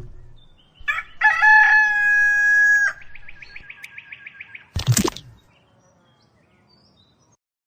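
A rooster crows in one long held call. It breaks into a fast pulsing at the same pitch for about a second and a half, and a short sharp sound follows about five seconds in.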